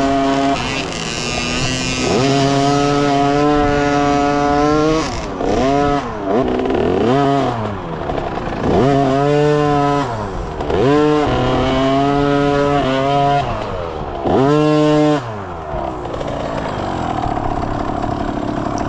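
Dirt bike engine heard from on the bike while riding a trail, revving up and easing off again and again, its pitch climbing and falling with the throttle and held steady for a few seconds at a time.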